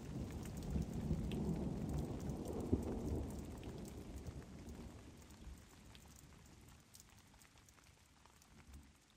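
Rain falling with a low rumble of thunder. It fades away steadily over the last six seconds or so.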